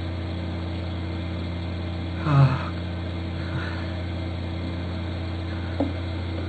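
Steady low electrical hum on a webcam microphone, with a man's short groan falling in pitch about two seconds in and a faint click near the end.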